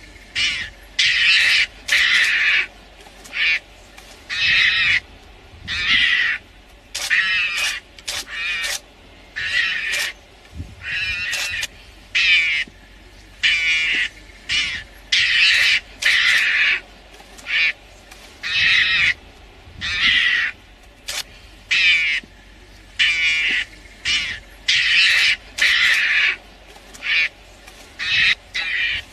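A mongoose giving repeated harsh alarm calls at lionesses, short calls coming about once a second.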